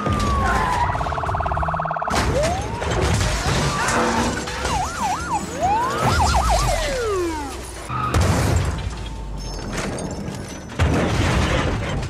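Action film soundtrack: police sirens wailing up and down over score music, broken by sudden car crashes with smashing metal and glass, one about two seconds in, another around eight seconds and a loud one near the end.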